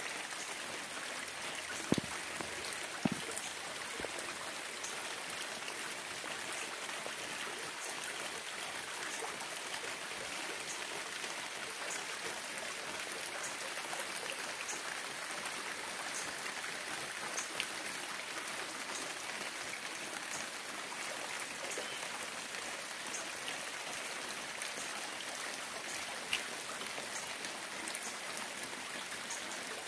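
Steady rain falling, with scattered single drops striking close by. A few louder drop hits come about two and three seconds in.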